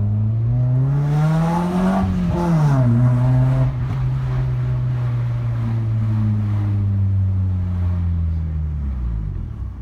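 Mitsubishi Lancer engine and exhaust, with the muffler removed and headers fitted, rising in revs under acceleration for about two seconds. A gear change then drops the revs, the engine holds a steady pitch while cruising, and it eases off near the end.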